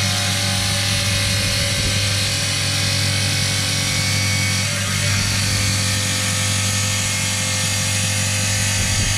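Wet stone-cutting saw running with a steady motor hum as its circular blade grinds through a rock nodule held against it, cutting into ammonite-bearing stone.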